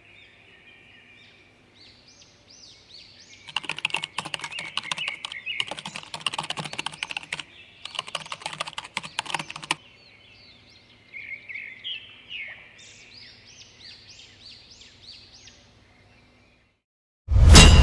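Small birds chirping, with three runs of rapid clicking, each about two seconds long, in the middle. A loud sudden hit just before the end.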